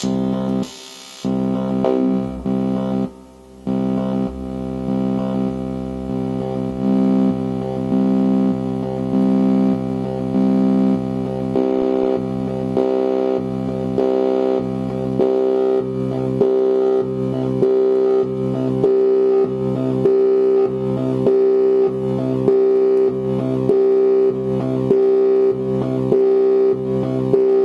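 Eurorack modular synthesizer sounding a sustained pitched tone, which cuts out briefly twice in the first few seconds. From about eleven seconds in it pulses in a steady rhythm of roughly one and a half notes a second while the patch is adjusted.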